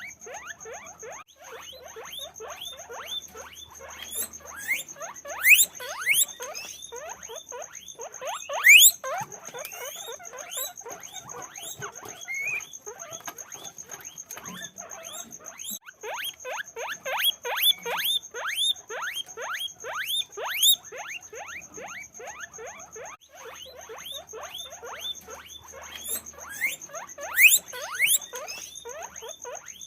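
Many guinea pigs squeaking together: a dense run of short rising squeaks, several a second and overlapping, with louder squeaks standing out now and then.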